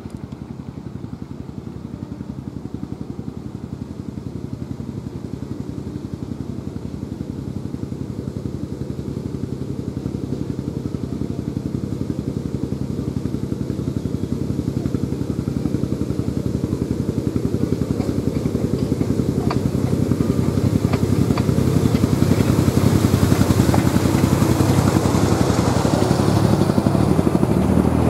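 Miniature railway diesel-hydraulic locomotive approaching and running past, its engine hum growing steadily louder, with a few sharp clicks of wheels on the track in the second half as it draws close.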